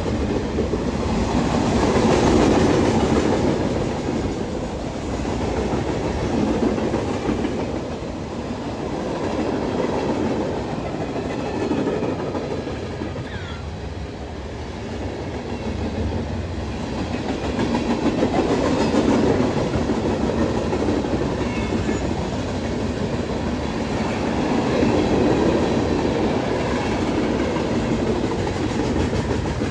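Long CSX freight train's cars rolling past, steel wheels on the rails giving a continuous rumble with a dense run of clicks. The loudness swells and eases every few seconds as the cars go by.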